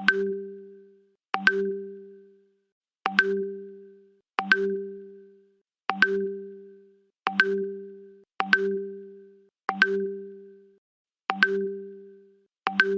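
WhatsApp Web notification sound played again and again, about ten times: each one a quick pop followed by a low ding that fades out within about a second, repeating every second and a half or so.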